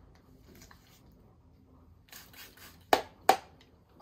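A brief rustle, then two sharp clicks close together about three seconds in, from small objects being handled.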